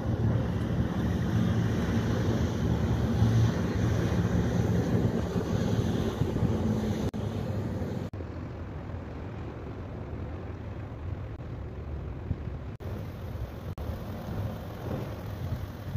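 Wind on the microphone over a low, steady engine drone from passing ships, the drone strongest in the first half. The noise changes abruptly a few times.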